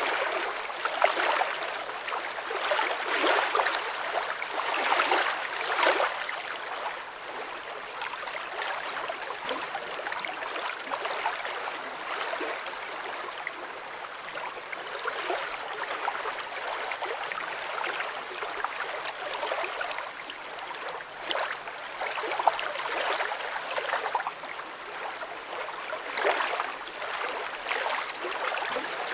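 Water flowing and gurgling, a continuous rushing hiss with no low rumble, swelling louder now and then, mostly in the first six seconds and again near the end.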